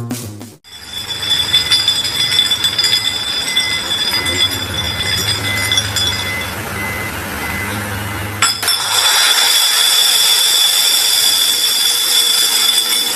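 A forklift's engine runs against a steady machinery whine, with a beeping alarm repeating about twice a second. About two-thirds of the way in, a tall stack of plastic crates topples off the forks with a crash, and a louder clatter and rattle of crates tumbling follows.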